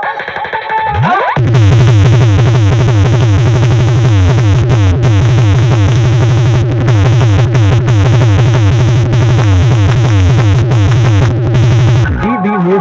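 Loud electronic DJ music played through a competition sound-box system. A rising sweep about a second in gives way to a heavy, deep bass beat under rapid falling synth stabs, which cut off abruptly just before the end.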